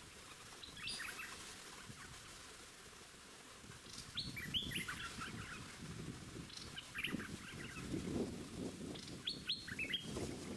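Streak-eared bulbuls calling: four bursts of quick, short chirps, each note falling in pitch, spaced a few seconds apart.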